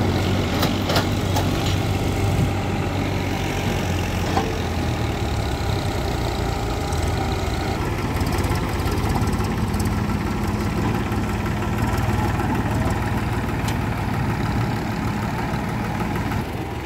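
Diesel engines running: a Case 770 backhoe loader, with a few sharp knocks in the first five seconds. From about eight seconds in it is joined by the three-cylinder diesel of a Mahindra 275 DI tractor pulling up with its trailer, adding a second steady drone.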